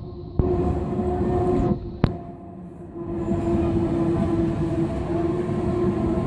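ÖBB electric-hauled passenger train rolling past on the track, a steady rumble with a steady hum. There is a single sharp click about two seconds in, followed by a brief quieter spell.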